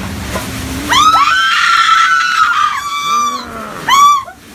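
High-pitched screaming: one long, shrill scream starting about a second in, then several shorter shrieks near the end.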